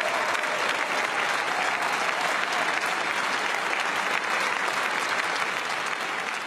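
Large audience applauding, dense steady clapping that eases slightly near the end.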